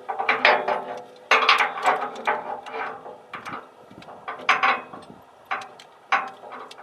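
Steel cable and its hook clinking and rattling against the steel loader bucket and rake fittings as the cable is fed through. The clanks are irregular, about one or two a second, and some ring briefly.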